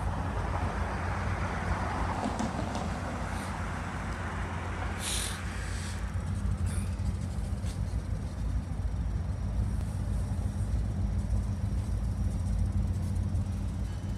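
Low, steady rumble of diesel freight locomotives, EMD GP38-3 and SD40-2 units, moving slowly. There is a brief hiss about five seconds in.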